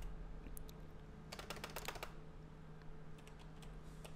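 Computer keyboard typing: quiet, irregular keystrokes as a search term is typed, over a faint steady hum.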